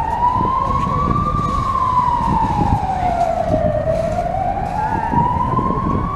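A siren wailing slowly, its pitch rising until about a second in, falling until about four seconds in, then rising again, over a low street rumble.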